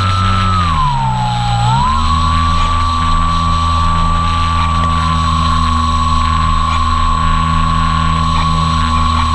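Electric motor and propeller of an Apprentice RC trainer plane whining, heard on board with wind rushing over the plane. The whine drops in pitch about a second in as the motor slows, then rises again and holds steady.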